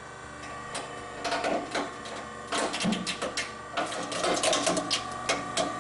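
SEM Model 0101 Sledgehammer hard drive crusher running its crushing cycle: a steady motor hum, with a run of sharp cracks and clicks from about a second in as its conical steel punch is forced into the hard drive.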